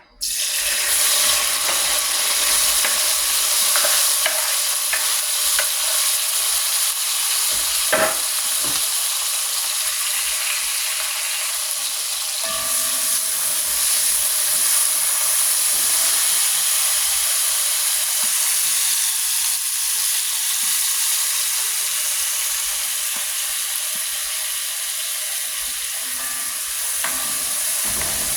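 Chopped seasoning sizzling as it fries in hot vegetable oil in a pot, starting suddenly as it goes in and hissing steadily while it is stirred, with a few clinks of the spoon against the pot, the clearest about eight seconds in.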